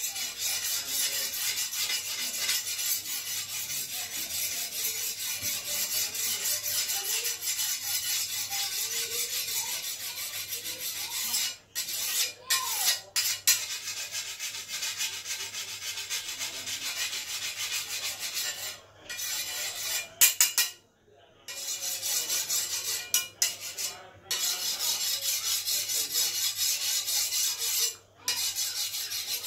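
Hand file scraping along a machete's steel edge in rapid, continuous rasping strokes as the blade is sharpened, stopping a few times for a moment.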